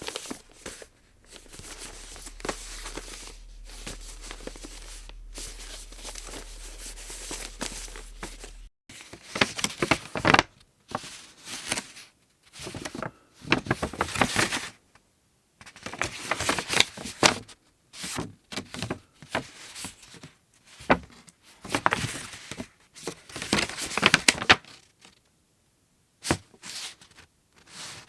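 Square origami paper being handled and folded: irregular rustling and crinkling in short bursts, with pauses between folds.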